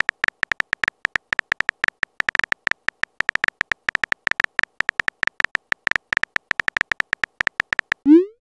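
Texting-app keyboard sound effect: a rapid run of short, high ticks, about eight a second, as a message is typed. Near the end, a short rising swoosh as the message is sent.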